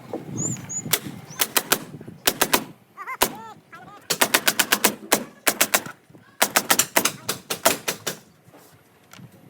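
Nail gun firing in quick bursts of rapid shots, several a second, with short pauses between bursts.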